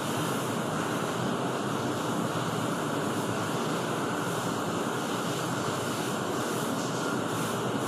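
A steady, even rushing noise with no distinct knocks or scrapes.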